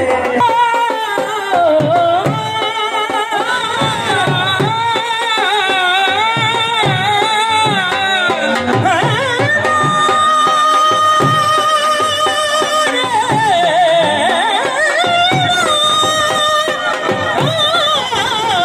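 Men singing an ornamented folk song through microphones and a PA, with wavering, drawn-out notes. Dhol drum beats accompany them underneath.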